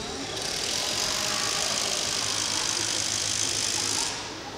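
A steady, high-pitched rushing hiss that starts just after the beginning and cuts off abruptly about four seconds in.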